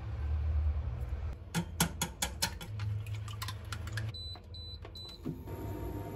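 A quick run of sharp clicks, then three short, high electronic beeps from a kitchen appliance.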